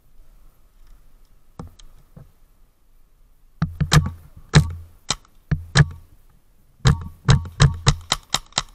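Paintball marker firing close by: two strings of sharp shots, the first starting about three and a half seconds in, the second faster after a pause of about a second.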